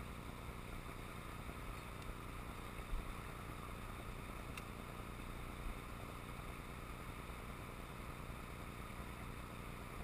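Steady rush of a shallow mountain river running over stones and a riffle, with a couple of faint ticks.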